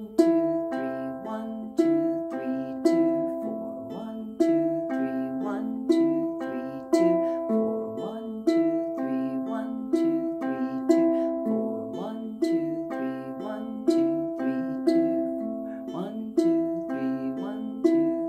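Ukulele fingerpicked on an A minor chord: a steady, repeating pattern of single plucked notes, about four a second, that ring over one another. The thumb plays between the G and C strings, the index finger takes the E string and the middle finger the A string.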